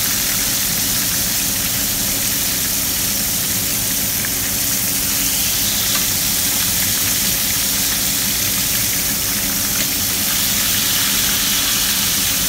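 Coated pieces of Banga-Mary fish frying in hot oil, a steady loud sizzle with a few faint clicks as metal tongs turn the pieces.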